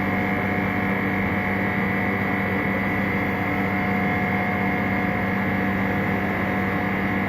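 Steady machine hum with a few fixed tones, unchanging throughout.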